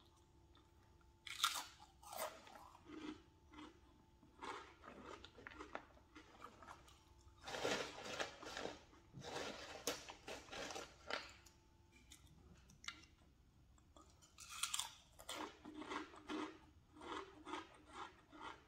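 Crunchy snack chips being bitten and chewed close to the microphone, crisp crackling crunches coming in several bursts with short pauses between mouthfuls.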